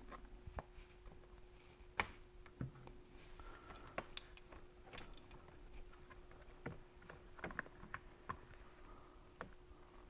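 Faint scattered clicks and taps from handling the shifter's plastic dust boot as it is fitted over the shifter and clipped in place, over a faint steady hum.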